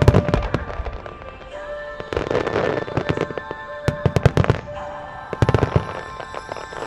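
Aerial firework shells bursting in repeated clusters of sharp bangs and crackle, over the music that accompanies the display.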